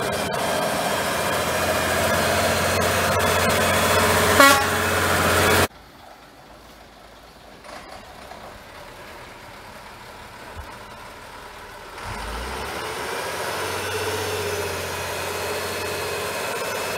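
Praga V3S truck's air-cooled six-cylinder diesel engine running as the truck drives on a muddy forest track, with a brief toot a little over four seconds in. The sound then cuts to the engine heard faintly and far off, growing louder again in the last few seconds as the truck comes closer.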